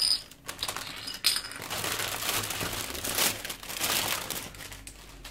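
Two sharp clicks as hard plastic miniature bases are set down on a cutting mat, one at the start and one about a second later. Then a few seconds of crinkling from plastic wrapping and the paper magazine being handled, fading near the end.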